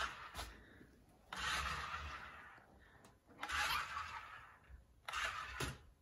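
Toy remote-control car whirring as it is driven in three short bursts, each starting suddenly and trailing off.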